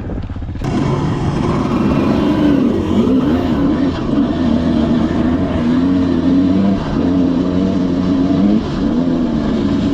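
Dirt bike engine running under way, its revs rising and falling over and over as the throttle is worked.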